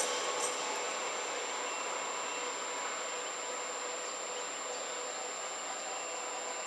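ÖBB Talent electric multiple unit running away along the track, its rolling noise fading to a steady, even hiss as it recedes.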